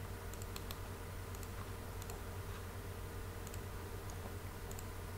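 Several light computer mouse clicks, scattered and a few in quick pairs, over a steady low electrical hum.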